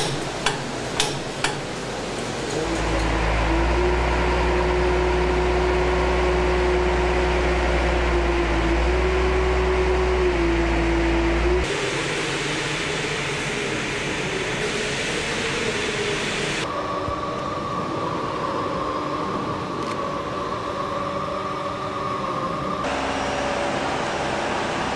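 Airbus A380 jet engines running: three short clicks, then a strong low rumble with a steady whine that shifts slightly in pitch. About halfway through the sound changes abruptly to a lighter steady roar, and later to a steady higher-pitched whine.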